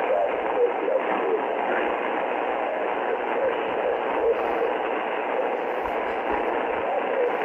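Weak shortwave signal in upper sideband through an Icom IC-R30 receiver: steady static hiss, with a faint voice wavering underneath.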